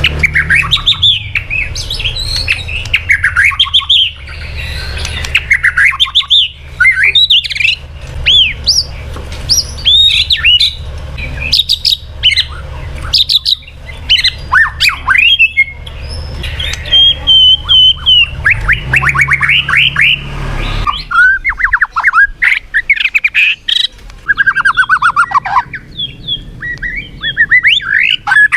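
White-rumped shama singing a fast, varied song of sweeping whistles and rapid trills, phrase after phrase with short gaps between them.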